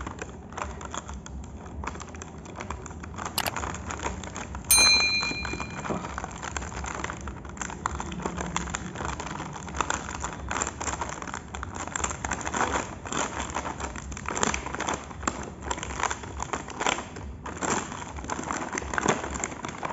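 Plastic blister packaging and its cardboard backing crinkling and crackling as hands pull it open, with many small irregular clicks. About five seconds in there is one sharp snap with a brief ringing tone.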